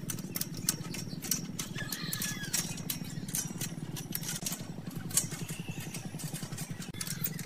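A motor running with a steady low, fast-pulsing hum, under many sharp irregular ticks and crackles; a bird chirps briefly about two seconds in.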